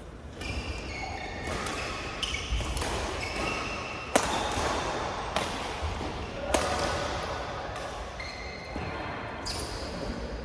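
Badminton rally on an indoor court: sharp racket strikes on the shuttlecock about a second apart, amid short high squeaks of sneakers on the court floor.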